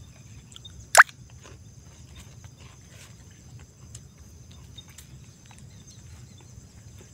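Steady high-pitched drone of insects, with faint small clicks and mouth sounds of someone eating fried fish, and one short, sharp, loud sound about a second in.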